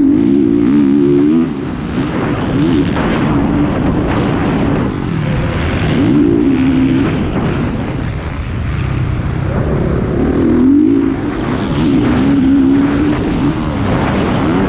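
Motocross bike engine heard onboard, revving hard and dropping back again and again as the rider works the throttle and shifts gears, with a brief lift off the throttle about a second and a half in. Wind and dirt noise rush over the microphone.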